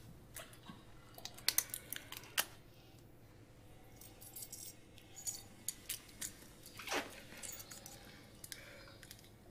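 Scattered small clicks and metallic clinks as the tattooist's gloved hands handle the tattoo equipment, with a brief falling swish about seven seconds in.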